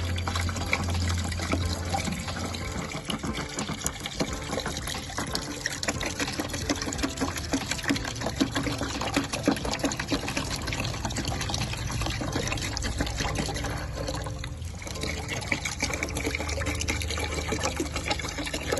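Water being poured from bottles into a container, a steady splashing fill with a brief break about three-quarters of the way through.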